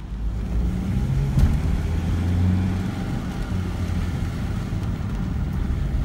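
Saab 9-3 1.9 TiD diesel engine running steadily while the car drives, heard from inside the cabin, with one short click about a second and a half in.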